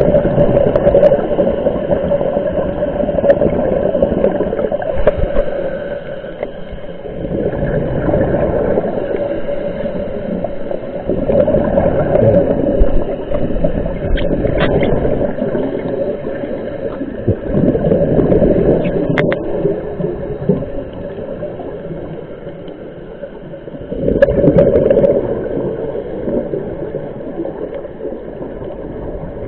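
Scuba diver's regulator breathing underwater: gurgling bursts of exhaled bubbles that swell and ease every several seconds. A few sharp clicks come in the middle.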